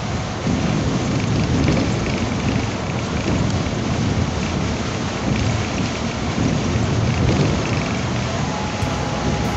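Steady, loud rumble and hiss of a bus in motion on the highway, heard from inside the cabin, growing a little louder about half a second in.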